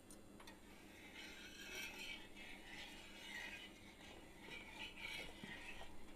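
Steel spatula scraping over a hot iron tawa, spreading mustard oil, in several faint uneven scrapes with short gaps.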